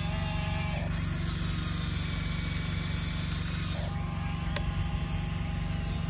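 Radio-controlled model excavator working its arm: a steady low mechanical hum, with a high whine from about one second in that cuts off near four seconds, and a single click a little later.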